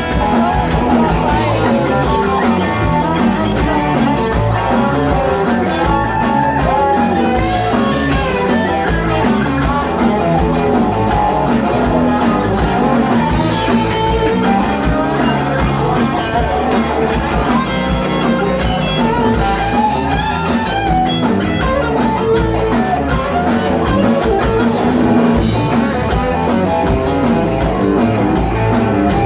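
Live country-rock band playing an instrumental break: a guitar solo with bending notes over a steady beat of bass and drums.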